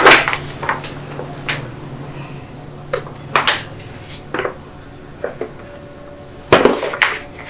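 Sheets of paper rustling and crinkling in short, scattered crackles as a delivery slip is handled and signed, with a louder rustle a little before the end.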